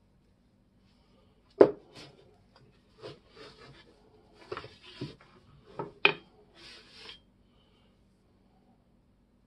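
Paintbrush working oil onto a hammer axe's handle, with short scratchy brushing strokes and the brush dipping in a small glass jar. Several sharp knocks and clinks come among the strokes, the loudest about a second and a half and six seconds in.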